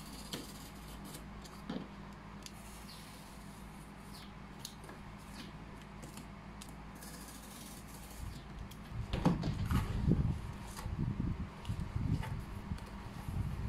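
Corrugated cardboard cut with a utility knife along a ruler, heard as faint scrapes and clicks. From about nine seconds in it turns to louder, irregular rustling and scraping as the cardboard is handled and folded.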